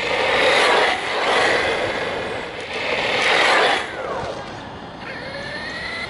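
Flyhal FC610 RC truck with a Surpass Hobby brushless motor running flat out on a damp road: a loud rush of tyre noise and motor whine swells as it passes close about three and a half seconds in, the whine falling in pitch as it goes by. Near the end a rising whine as it drives back toward the mic at lower speed.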